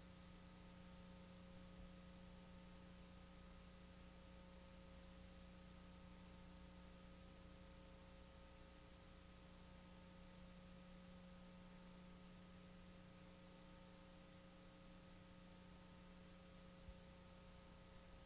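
Near silence: a faint, steady electrical hum with hiss, from a blank stretch of the recording.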